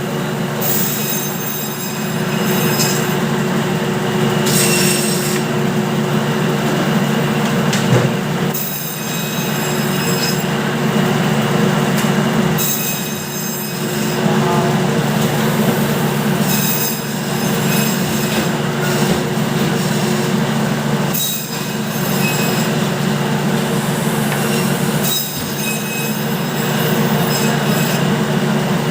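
Meat bandsaw running steadily, cutting a beef shortloin into T-bone steaks. A shrill whine rises over the motor's hum for a second or two about every four seconds, as the blade goes through the loin and bone on each slice.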